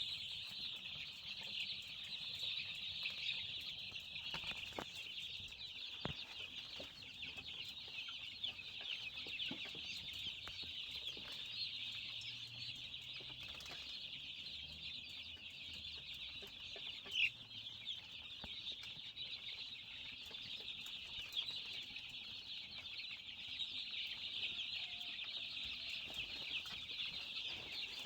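A flock of young chickens peeping together in a dense, continuous chorus of many overlapping high calls, with one louder call about seventeen seconds in.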